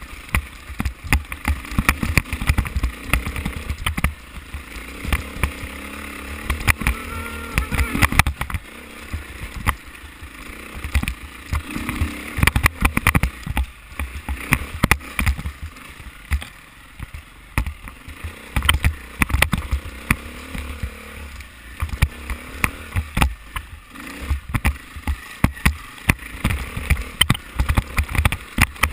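Dirt bike engine running at low revs as it descends a rocky trail, its pitch rising and falling now and then, with wind buffeting a helmet-mounted microphone and frequent knocks and rattles as the bike jolts over rocks.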